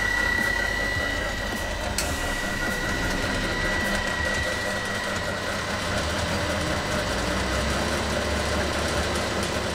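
Electric blower of a Freund Spir-A-Flow fluid-bed granulating dryer running steadily: a constant low hum and rush of air with a high whine. The whine grows fainter about halfway through.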